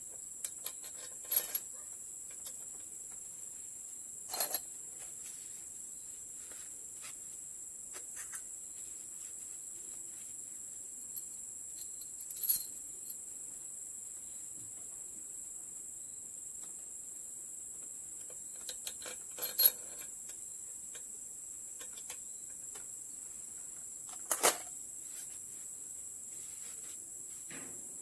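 Steady high-pitched insect drone with about five sharp metallic clinks and knocks scattered through it, the loudest past the middle, from hand tools and metal parts being handled during refitting of the cylinder head.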